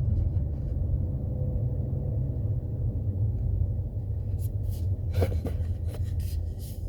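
Low, steady rumble inside a BMW M340i's cabin as it is driven, with a faint thin tone early on and a few short, faint ticks a little past the middle.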